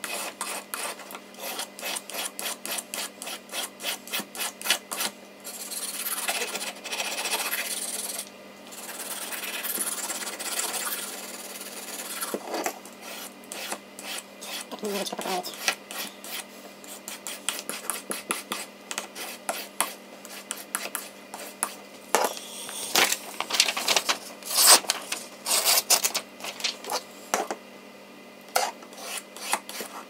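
Victorinox Swiss Army knife blade scraped over a handheld sharpening stone in quick back-and-forth strokes, several a second, with a few longer drawn strokes. The edge is being sharpened because it has gone noticeably dull.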